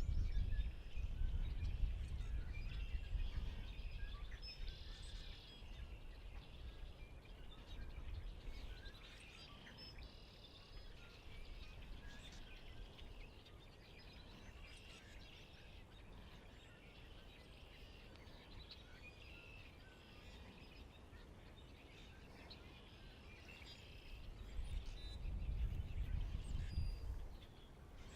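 Small birds chirping and calling throughout in the background, with a low rumbling noise in the first few seconds and again near the end.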